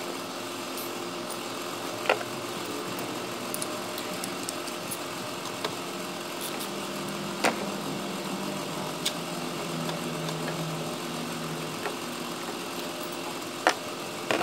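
Volkswagen Polo engine idling steadily, with a few sharp clicks over the hum.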